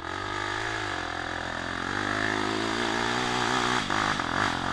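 Off-road motorcycle engine running and revving, its pitch rising and falling as the throttle is worked, turning choppier near the end.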